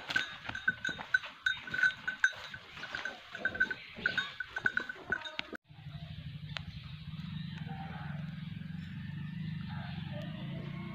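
Irregular metallic clinks and knocks with a light ringing, as a water buffalo is led on its tether. About halfway through, a sudden cut brings in a steady low hum.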